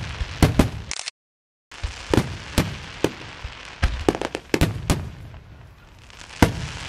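Fireworks going off: a dozen or so sharp bangs at uneven intervals, some in quick pairs, over a steady crackle. The sound drops out completely for about half a second at about one second in.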